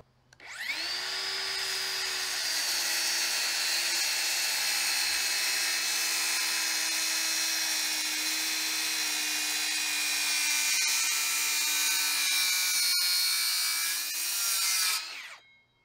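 Circular saw spinning up and cutting across a 4x4 post, a steady whine that sags slightly in pitch under load for about fourteen seconds. Near the end the pitch rises as the blade clears the wood, then the saw stops.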